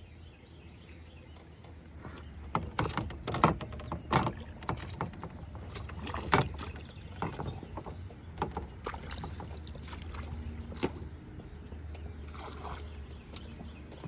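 Water splashing and sloshing with irregular small knocks and clicks, over a steady low rumble.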